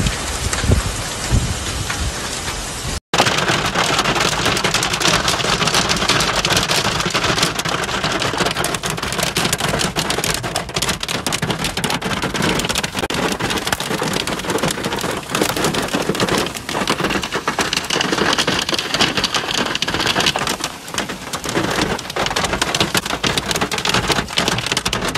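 Hail and wind on open ground, with wind rumbling on the microphone for the first three seconds. Then, after a sudden cut, hailstones pelt a car's roof and windshield from inside the cabin in a dense, unbroken clatter of hard hits.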